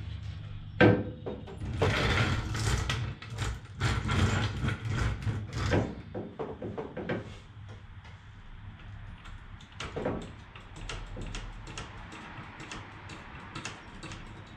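Steel floor jack being rolled and set under the front of a car on a concrete floor: metal clanks and wheel clatter, with a sharp knock about a second in. A run of short, regular clicks follows in the second half as the jack is worked.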